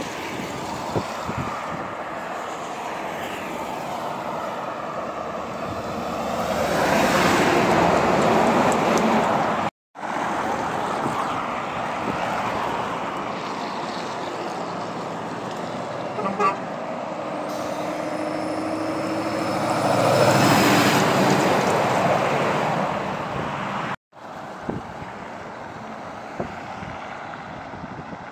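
Heavy trucks passing close on a road: engine and tyre noise swells and fades twice. A truck horn sounds for about two seconds just before the second pass.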